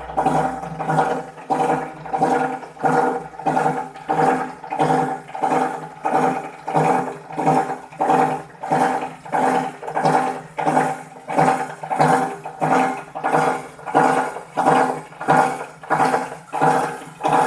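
Plastic recycling grinder running: a steady machine hum with a regular pulsing beat about twice a second.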